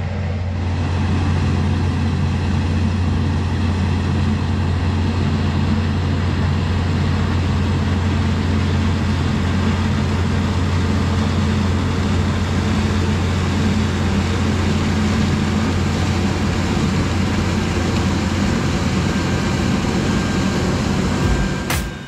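International Harvester 1486 tractor's diesel engine running steadily, a deep even drone heard from inside the cab.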